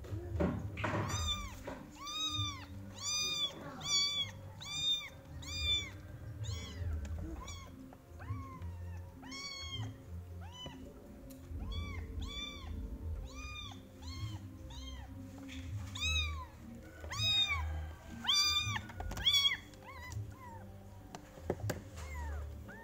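Young kittens meowing over and over, thin high cries that rise and fall, about two a second in runs with short pauses, as they are bottle-fed milk. Background music plays underneath.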